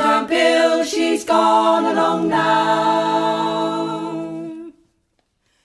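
Unaccompanied community choir singing the closing notes of a sea shanty. The voices end on one long held chord that cuts off suddenly about four and a half seconds in.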